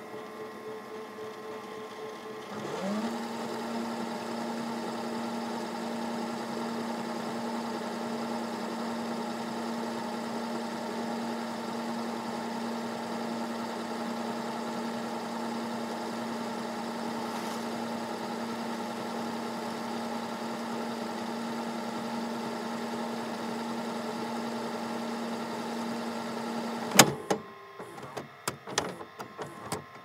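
VHS tape rewinding in a VCR. A steady whirr runs for the first couple of seconds, then the reels spin up with a rising whine into fast rewind, a steady mechanical hum. Near the end it stops abruptly with a loud clunk, followed by a few mechanical clicks.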